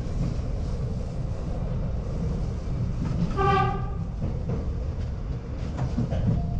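R62A subway train running on the 7 line, a steady low rumble of wheels on rail; about three seconds in, one short horn blast lasting about half a second.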